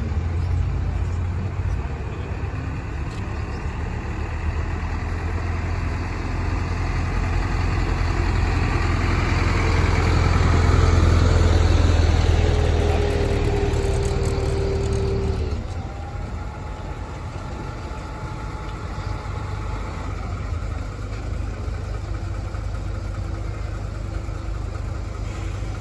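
Fire trucks' diesel engines in a slow convoy: one truck's engine rumble builds as it passes close, loudest about ten to fifteen seconds in with a steady whine, then drops away suddenly. After that a lower steady engine idle from the trucks standing in line.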